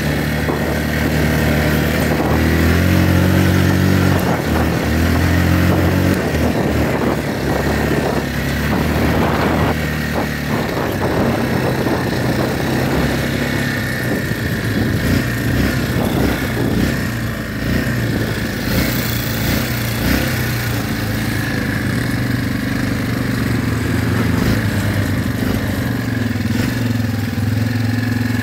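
ATV engine running as it is ridden over rough ground, rising in pitch a few seconds in, with knocks and rattles over the bumps, then settling to a steady, even run in the second half.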